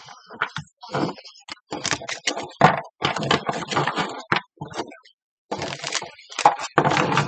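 Tarot cards being shuffled by hand: a quick, irregular run of papery slaps and rustles, with a brief pause about five seconds in.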